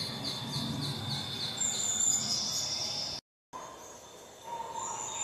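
Small animals chirping: short, falling high chirps repeat about three times a second, with a higher, drawn-out call over them. About three seconds in the sound cuts out briefly, and a different run of lower, rising chirps follows.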